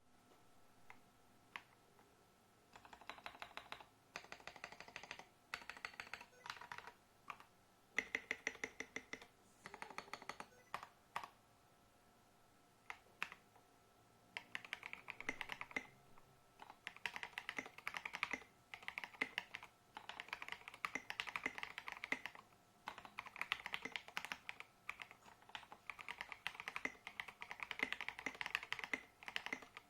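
Typing on a KBD67 Lite mechanical keyboard with stock, unlubricated Jwick (JWK) Red linear switches and SA-profile keycaps: rapid keystroke clicks. The first half comes in short bursts separated by pauses, then the typing runs almost without a break from about halfway in.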